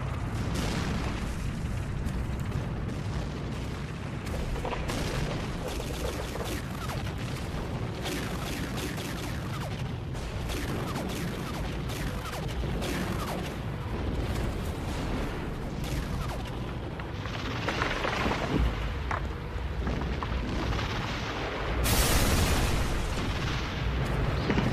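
Battle sounds: a continuous low rumble of shell explosions with many sharp gunfire cracks, and a louder blast near the end.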